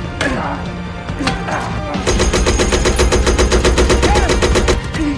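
Sustained rapid machine-gun fire in a battle sound mix. It starts about two seconds in as a fast, even rattle over a deep rumble.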